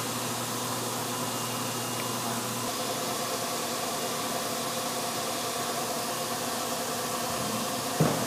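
Steady hangar background noise with a faint hum from running equipment; a low part of the hum drops out about two and a half seconds in, and a short knock comes near the end.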